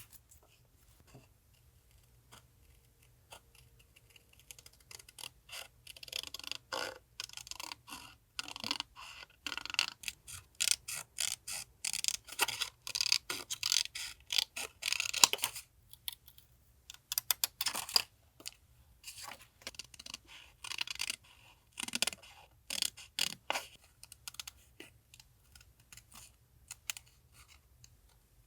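Paper and stationery being handled close up for a collage journal: scratchy rustling and scraping, dense from about six seconds in until about sixteen seconds, then scattered light taps and clicks.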